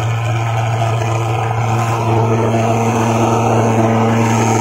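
Pulse-jet thermal fogging machine running steadily: a loud, even drone with a low fixed pitch as it discharges insecticide fog.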